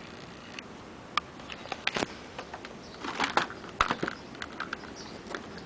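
A scattering of light clicks and taps at irregular intervals, some in quick runs.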